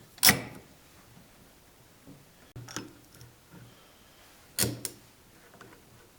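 Three sharp knocks with a short ringing tail, about two seconds apart, the first the loudest: clamps and wooden blocks being handled and set against the workbench while a glued veneer inlay is clamped.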